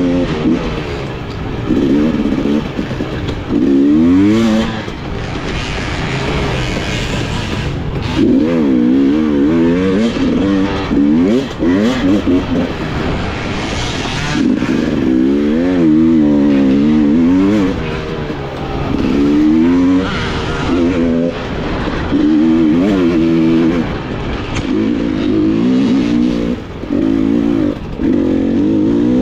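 Off-road dirt bike engine revving up and down over and over as the throttle is worked, with short drops in the revs between pulls.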